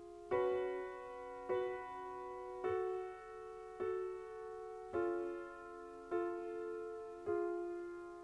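Grand piano playing a slow, even run of seven chords, one struck a little more than once a second, each left to ring and fade before the next.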